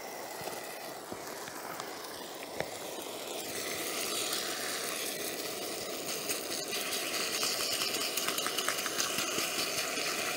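Seasoned beef fajita strips sizzling in a small frying pan over a portable gas-canister camp stove, with the burner's steady hiss underneath. The sizzle grows louder and more crackly partway through as the meat heats.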